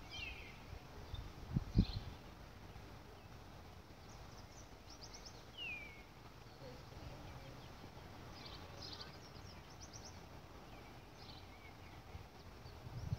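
Birds calling faintly: a few descending whistles and quick, high chirping trills over a low, steady outdoor rumble. A brief low thump comes about two seconds in.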